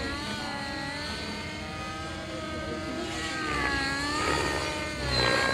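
Radio-controlled helicopter flying, its whine sliding up and down in pitch as it manoeuvres.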